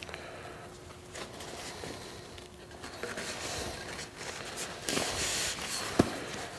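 Heavy fabric of a truck cargo bag rustling and scraping as a metal rail rod is pushed through its sewn loops, louder for a moment about five seconds in, with a single sharp knock just before the end.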